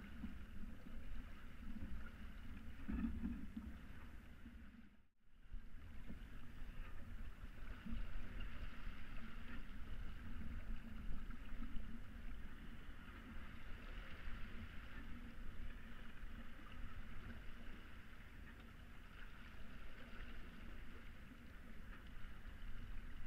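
Water rushing and hissing along the hull of a Hanse 355 sailing yacht under sail, over a low steady rumble. The sound cuts out briefly about five seconds in, then returns.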